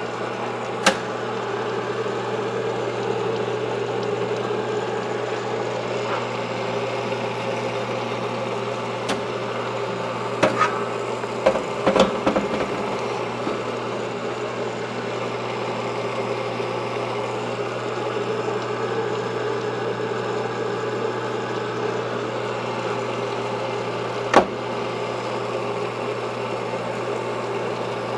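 Sunnen honing machine running steadily while a two-stroke motorcycle cylinder is worked over its spinning stone mandrel, taking the bore out with 400-grit stones to fit the piston, with a few knocks of the cylinder against the machine, the sharpest about 24 seconds in.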